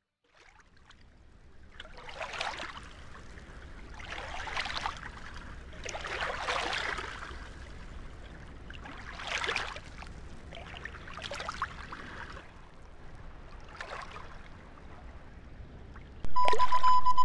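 Water sloshing and lapping in slow swells, one every two to three seconds, over a low rumble. Music comes in loudly near the end.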